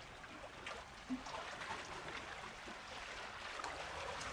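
Seawater washing and trickling among concrete wave-breaker blocks, a faint steady hiss with a few small clicks.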